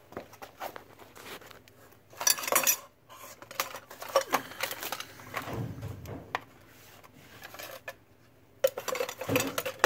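Small objects clinking, knocking and rustling as a hand rummages through a cardboard box of knick-knacks. The sound comes in several spells, loudest about two seconds in and near the end.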